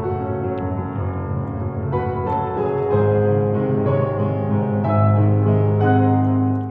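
Background piano music, slow with held notes.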